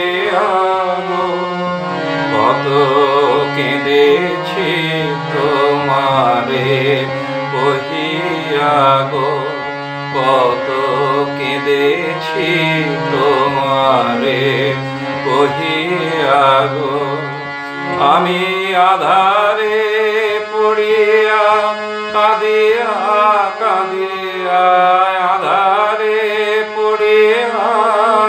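A man singing a slow Bengali song in long, wavering held notes, over a steady low instrumental drone whose pitch changes about two-thirds of the way through.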